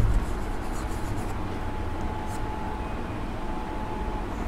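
Chalk scratching on a blackboard in short strokes, mostly in the first second or so and once more about two seconds in, over a steady low hum.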